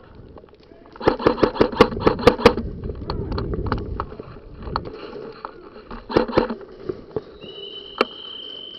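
A fast run of sharp clicks, about eight in a second and a half, over a low rumble, then a few more clicks a little later and one sharp click near the end, with a steady high tone beginning shortly before it.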